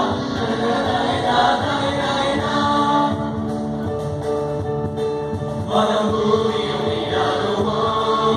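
Mixed choir of men and women singing in held notes into microphones. The singing thins out in the middle and comes in fuller again about six seconds in.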